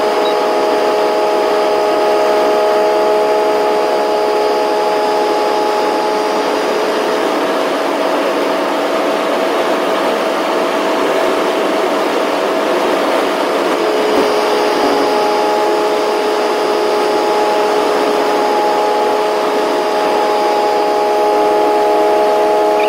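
Steady engine and road noise inside a truck's cab while cruising at highway speed. A hum of several steady tones runs over the rushing noise, drops away about a third of the way in and comes back a little past halfway.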